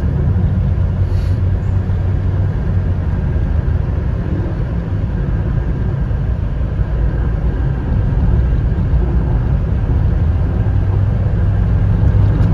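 Road and engine noise of a moving car heard from inside the cabin: a steady low rumble that grows a little louder about eight seconds in.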